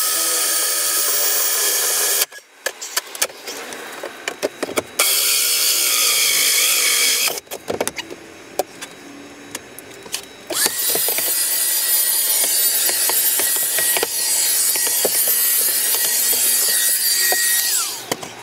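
Power drill boring a 1-inch hole through the plywood of a cabinet, running in three stretches (briefly at first, again about five seconds in, then a longer run with a steady whine from about ten seconds in until near the end), with knocks and clatter between the runs.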